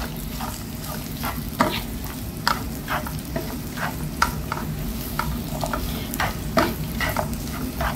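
Chopped onions, ginger and green chillies sizzling in hot oil in a frying pan, stirred with a spatula that scrapes and taps against the pan again and again, about once or twice a second, over a steady sizzle.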